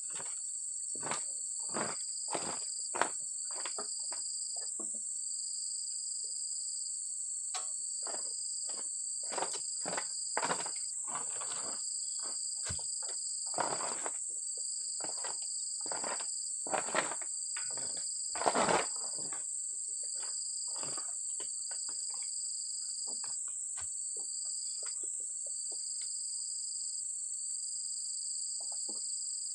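A steady chorus of insects trills without a break, over a second high trill that pulses on and off about every second and a half. Scattered dull knocks and thuds from handling oil palm fruit bunches come at irregular moments, the loudest about two-thirds of the way through.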